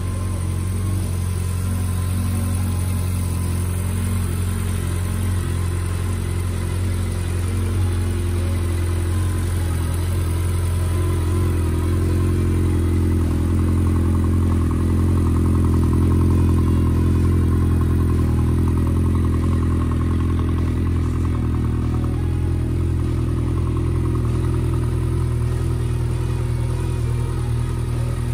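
Honda CB1300SF inline-four engine idling steadily, running a little louder around the middle before settling back.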